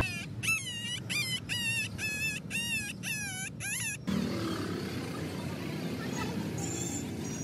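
Puppy yelping in a rapid series of high-pitched cries, about two a second, while the dog-bite wound on its head is being cleaned and dressed. The yelps stop suddenly about four seconds in, leaving faint outdoor background noise.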